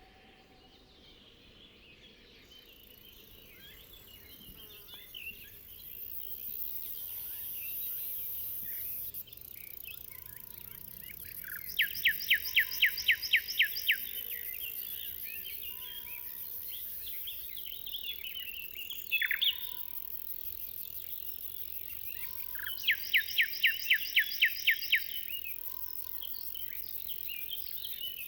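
Riverside birdsong chorus of many small chirps, in which one bird twice sings a loud rapid series of about a dozen sharp notes, roughly six a second, first about twelve seconds in and again near the end. Short low notes recur every couple of seconds, and a steady high insect hiss sets in a few seconds in.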